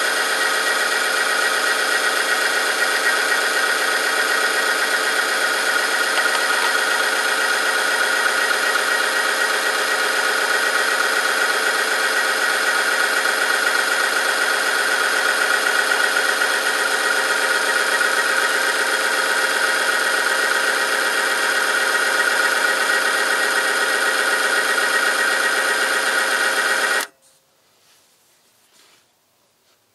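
Oil-film strength test machine running: its electric motor turns a ring against a lubricated steel sample with a steady, high whining grind. The sound cuts off abruptly near the end as the machine stops.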